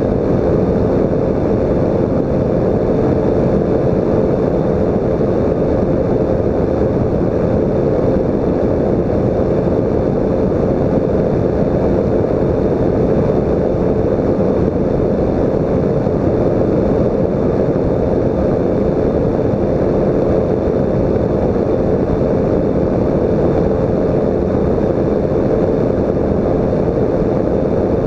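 Weight-shift microlight trike in steady flight: its engine and pusher propeller drone evenly throughout, with wind rushing over the microphone.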